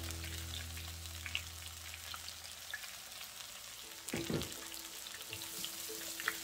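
Tempura-battered onion rings deep-frying in hot oil: a steady crackling sizzle, with one brief louder sound about four seconds in.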